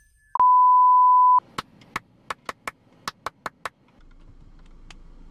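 A loud, steady single beep tone near 1 kHz lasting about a second, then about nine sharp clicks at uneven spacing over the next two seconds, then a faint low hum.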